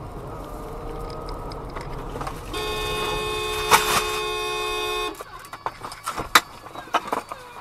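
A car horn blares steadily for about two and a half seconds as a motorcycle crashes into a van turning across its path. A sharp crash impact comes in the middle of the horn, and after it come scattered knocks and scrapes of the fallen bike and debris on the road.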